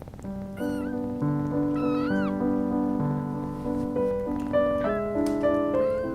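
Young kitten mewing several times in short, high-pitched calls over gentle piano background music.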